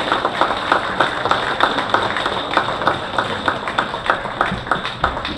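Audience applauding, with sharp individual claps at about five a second standing out above a steady wash of clapping.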